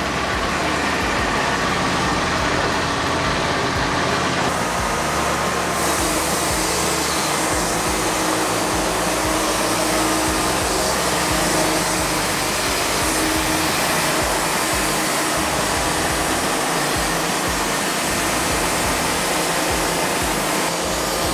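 Wood-Mizer LT40 Wide band sawmill running steadily, its engine and 10-degree Wood-Mizer band blade cutting lengthwise through a monkey pod log.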